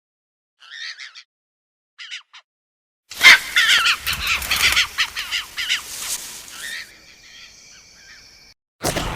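Procompsognathus dinosaur sound effect: two short high chirps, then a loud call of about four seconds made of rapid squeaks falling in pitch, fading into a quieter thin trill, with another short call right at the end.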